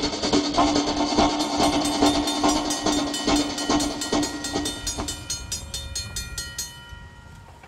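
Railroad crossing bell ringing in rapid, even strokes over the rumble of a passing freight train. The sound fades out near the end.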